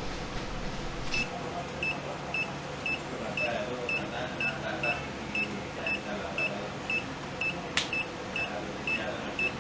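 A multimeter's buzzer beeping in short, evenly spaced high pulses, about three a second, starting about a second in. It signals that the controller's process variable is far above its set point. There is a single sharp click near the end.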